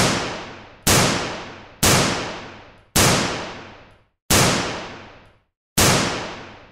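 Gunshot sound effects: six single shots about a second apart, spacing out slightly as they go. Each is a sharp crack whose ringing tail dies away over about a second.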